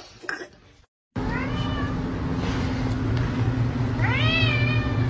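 A cat meowing twice, first a short call and then a longer one that rises and holds, over a steady low hum.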